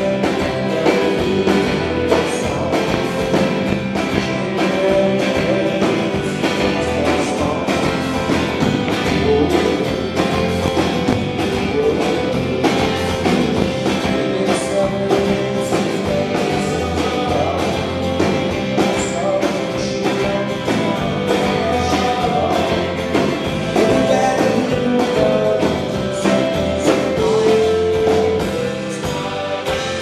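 Indie rock band playing live: acoustic guitar strumming over bass guitar and drums, with a male lead voice singing.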